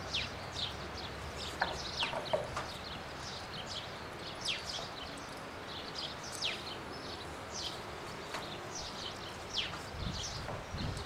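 Small birds chirping over faint outdoor background noise, with many short, quick, downward-sweeping notes repeated throughout. A low rumble comes in near the end.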